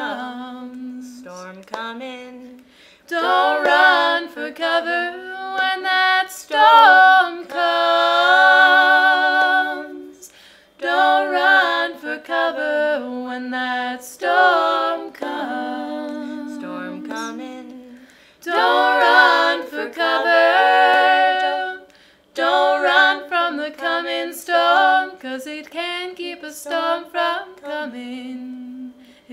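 Three women singing a cappella in close harmony, in sung phrases a few seconds long with short breaks for breath, a lower voice holding long notes beneath.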